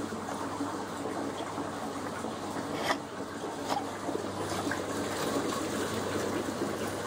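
Steady rushing noise, like running water, over a faint low hum, with two short knocks about three and four seconds in.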